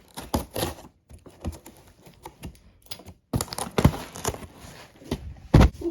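Cardboard box being opened by hand: a run of irregular clicks, scrapes and crackles of cardboard and packing, with a few louder knocks toward the end.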